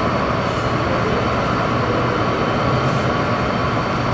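Diesel railcar running with a steady, unbroken drone.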